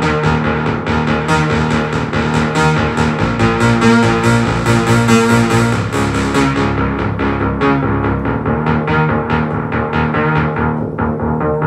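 Roland Juno-60 analog synthesizer playing a fast arpeggiated bass line. The sound is sawtooth plus sub-oscillator pulse under triangle-LFO modulation through its 24 dB low-pass filter. The top end of the tone thins out a little past the middle.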